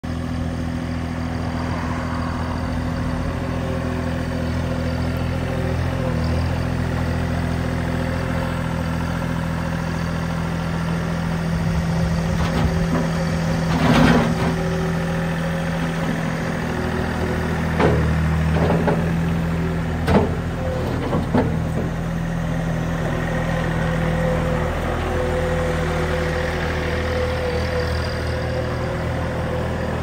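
2019 Bobcat S70 skid-steer loader's small three-cylinder Kubota diesel running steadily as the machine drives and works its bucket. Several sharp clanks and knocks come in the middle stretch, the loudest about halfway through.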